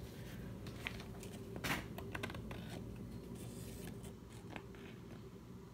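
Faint handling noise from a hardcover picture book held up and shifted in the hands: light paper and cover rustles with a few sharp taps and clicks, over a steady low room hum.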